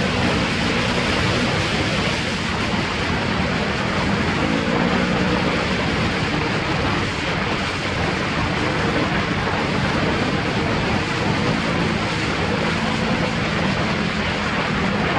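An ATV engine running under way, its pitch climbing with the throttle about four seconds in and again near the end. A steady, loud rushing noise lies over it throughout.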